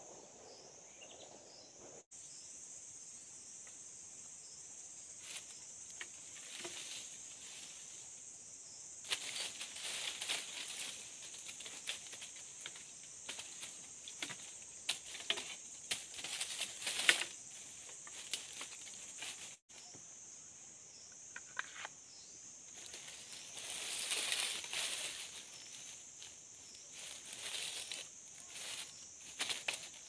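Dry leaf litter and bamboo poles rustling and scraping in bursts as the poles are handled, with one sharp knock about seventeen seconds in. Under it runs a steady high insect buzz.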